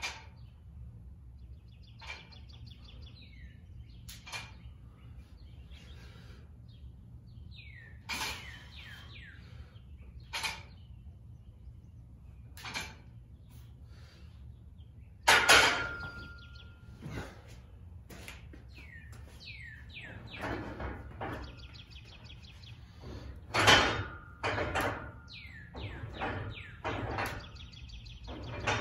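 Scattered knocks and clanks from a barbell and weight bench during skull crusher reps; the loudest comes about halfway through, with a short metallic ring. Birds chirp in between.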